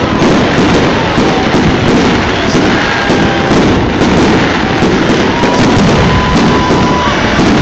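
Aerial fireworks display heard close up: dense, continuous booms and crackling from shells bursting overhead, packed so tightly they run together into a steady loud roar, with a few faint whistling tones among them.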